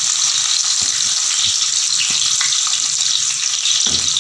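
Chopped onions and green chillies sizzling in hot oil in a wide metal pan, a steady frying hiss, with a light knock near the end.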